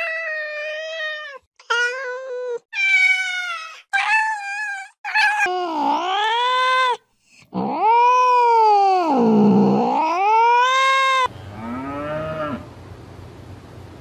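Cats meowing: a run of short, separate meows, then two long, drawn-out yowls that sag and rise again in pitch. Near the end, after a cut, a short low cow moo over outdoor background noise.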